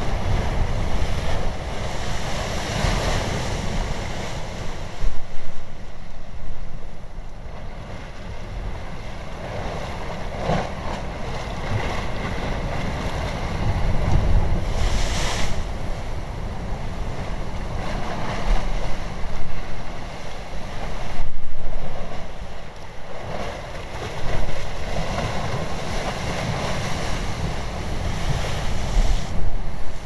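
Ocean surf: waves breaking and washing in, swelling and easing every few seconds over a low rumble.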